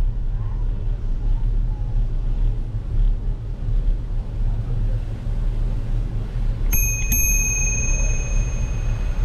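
Bicycle bell struck twice in quick succession about seven seconds in, its ring hanging on for about two seconds. Under it, a steady low rumble of wind buffeting the action camera's microphone as the bike rolls along.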